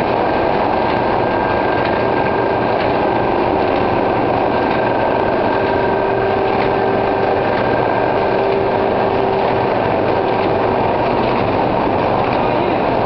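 Automatic square-bottom paper bag making machine running in production: a steady, dense mechanical clatter with a constant hum running through it.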